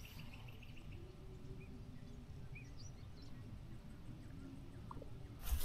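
Quiet outdoor ambience: a steady low rumble with a few short, faint bird chirps. A louder noise comes in right at the end.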